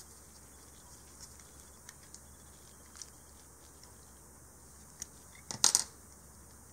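Faint light clicks of a small steel hex key turning a screw in a metal replica blaster part, then a brief, louder clatter about two-thirds of the way through as the hex key is set down.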